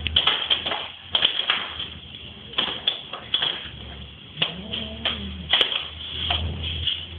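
A cat playing on a hard tile floor: irregular sharp taps and scuffs, a dozen or so, with one short rising-and-falling call about four and a half seconds in.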